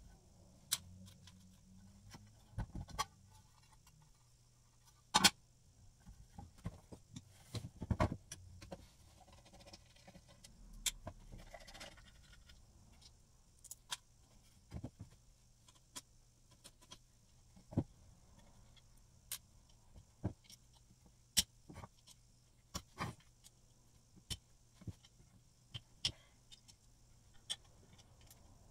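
Hand tools and metal parts of an old Skilsaw model 77 circular saw clinking and tapping as it is taken apart: scattered sharp clicks every second or two, with louder knocks about five and eight seconds in.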